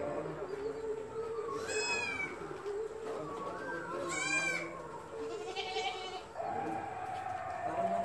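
Goats bleating in a shed: two long, wavering bleats about two and four seconds in, and a weaker one near six seconds.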